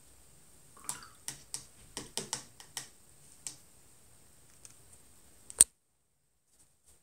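A run of small, sharp, irregular clicks and taps, about ten in two and a half seconds, from a paintbrush knocking and working in the pans of a watercolour paint box. One louder click comes about five and a half seconds in, and then the sound cuts out to dead silence.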